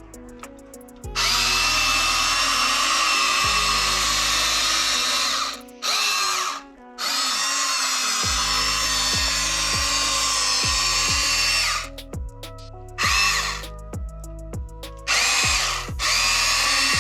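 Electric motors of a Huina 1592 1/14-scale RC excavator whirring in stretches of several seconds as its functions are worked. They cut out and start again about four times. Background music with a steady beat runs underneath.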